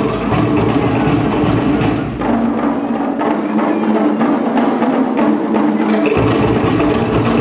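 Cook Islands dance music with fast wooden percussion driving a quick beat over held tones. The bass drops out about two seconds in and comes back about six seconds in.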